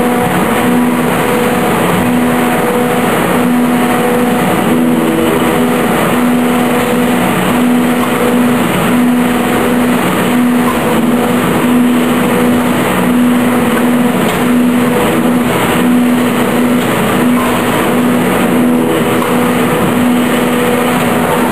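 Challenger automatic wood-shavings baler with form, fill and seal unit running: a steady machine hum with a low tone that flickers on and off over a wash of mechanical noise.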